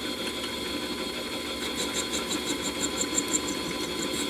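Harbor Freight 7x10 mini lathe running at slow speed, its motor and gear train giving a steady hum with a high whine. A faint rapid ticking joins about halfway through.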